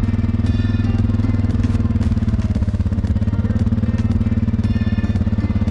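Small vehicle engine running steadily at low speed, an even, rapid low pulsing.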